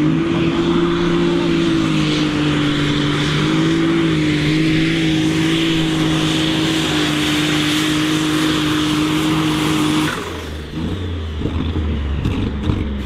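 Super stock pulling tractor's diesel engine held at full throttle under load, a loud, steady high pitch that wavers slightly. About ten seconds in the throttle is cut abruptly and the sound drops to a lower, rough rumble: the end of a full pull.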